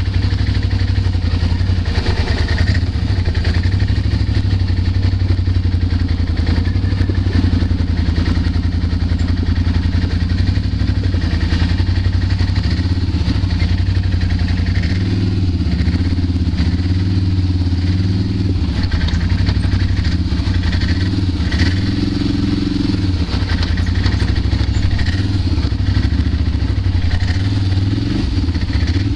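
ATV (quad bike) engine running close to the microphone as the machine climbs a rocky dirt track, its pitch rising and falling a little with the throttle.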